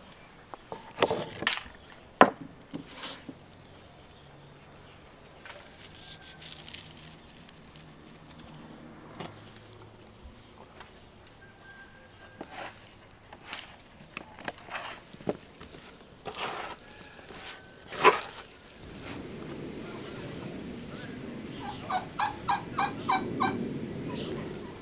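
Scattered sharp knocks of a knife on a wooden cutting board as beef and fat are cut and handled. Near the end, against a steady outdoor hiss, domestic poultry call in a quick run of about eight notes.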